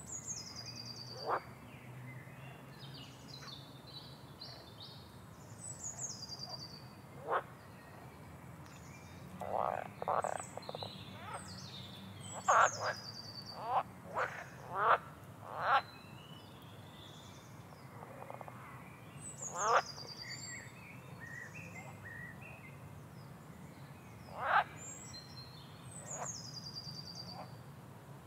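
Birds calling: short high whistled notes that fall in pitch, repeating every few seconds, with louder, sharp sweeping calls scattered through, most of them about halfway.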